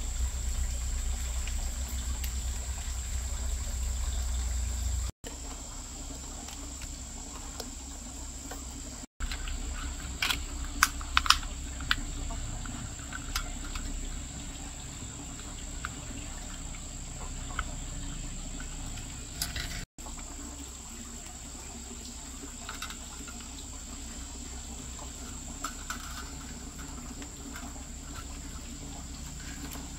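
Steady high-pitched insect drone, with a low rumble for the first few seconds and scattered light clicks and taps, broken by three brief drop-outs.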